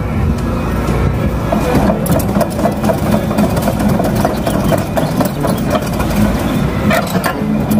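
Truck engine running steadily with a heavy, even rumble.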